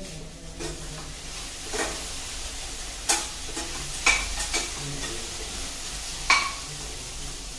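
Steel kitchen utensils clinking against steel cookware, a handful of sharp metallic clinks with a short ring, the loudest about three, four and six seconds in, over a steady faint hiss.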